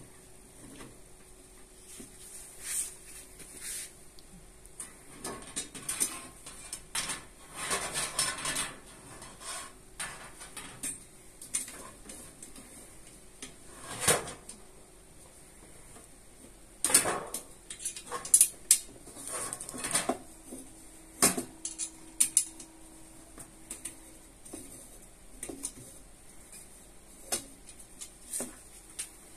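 Scattered metallic clinks, taps and rattles as the screws of a washing-machine rack are loosened and the metal rack is handled. The knocks come irregularly, the loudest ones about a third of the way through and again over a few seconds past the middle.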